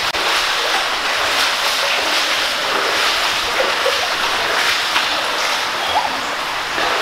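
Steady rush of creek water running through a corrugated metal culvert pipe.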